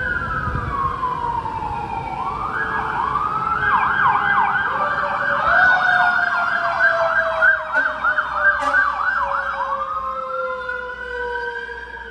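Emergency vehicle siren: a slow wail falling in pitch, switching about two and a half seconds in to a fast yelp for several seconds, then a slow rising wail again near the end. A second, lower siren tone slides slowly down underneath.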